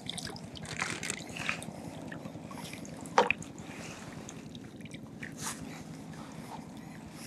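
Water dripping and lightly splashing around a landing net that holds a freshly caught herabuna (Japanese crucian carp), with scattered small clicks and one louder sharp sound about three seconds in.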